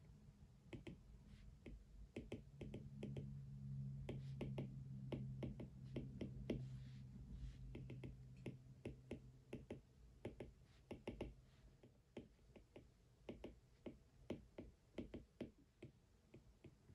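Faint typing on a computer keyboard: quick, irregular runs of key clicks with short pauses, over a low steady hum that fades out after about ten seconds.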